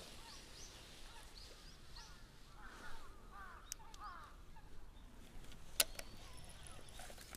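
Faint calls of distant birds: a run of short, arched calls about two to four seconds in, with a couple of sharp clicks later on.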